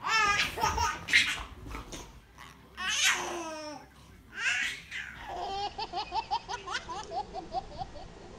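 Baby laughing: loud, high squealing laughs in the first few seconds, then a quick run of short rhythmic giggles, about four or five a second.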